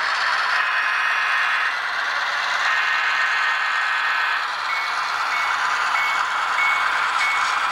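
Model Southern Pacific diesel locomotives running past with a steady mechanical hum and whine. About halfway through, a bell starts ringing about twice a second.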